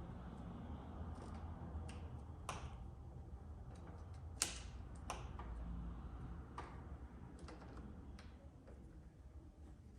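Faint scattered clicks and taps of hand work on a motorcycle clutch cable and lever, with one sharper click about four and a half seconds in, over a low steady rumble.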